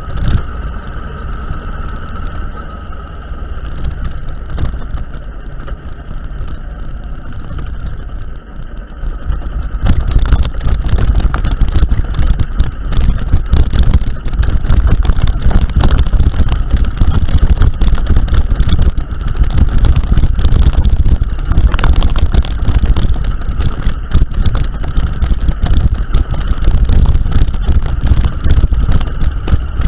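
A vehicle travelling a rough, broken road: steady low running and road noise with many short rattles and knocks. It gets much louder about ten seconds in.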